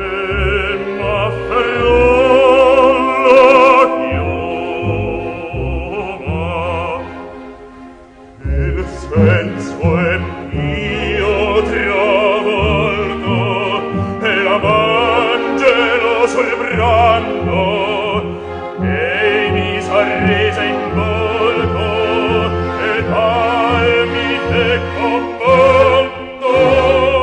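A recording of operatic singing with wide vibrato over an orchestra. The music drops away briefly about eight seconds in, then comes back.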